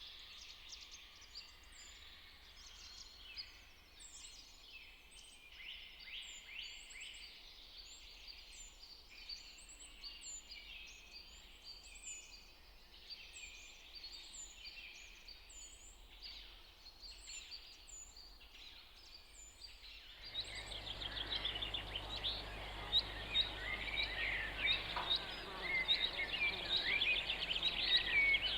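Outdoor ambience of small birds chirping and calling, a run of short high repeated calls over faint background noise. About two-thirds of the way through it cuts abruptly to louder background noise with denser, busier birdsong.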